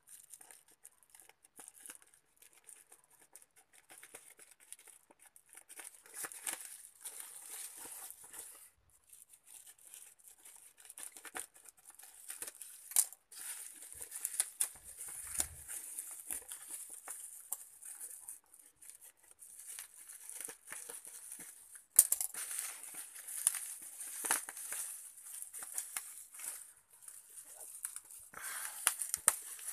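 A plastic-and-bubble-wrap parcel being opened by hand: scissors cutting the wrapping, then the plastic crinkling and tearing as it is pulled apart, with an irregular crackle and a few sharp clicks, the loudest about two-thirds of the way through.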